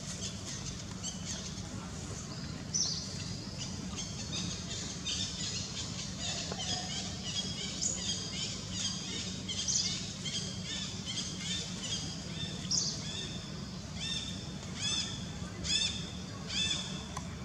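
An infant macaque squealing: a string of short, high-pitched, arching squeaks, coming more often and louder in the second half.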